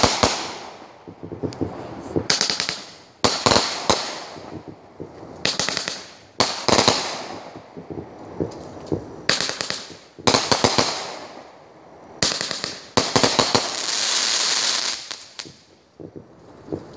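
Aerial fireworks bursting overhead: repeated sharp loud bangs, often two or three in quick succession, every second or two, many trailing off in a crackle. Near the end a longer crackling shimmer lasts about two seconds.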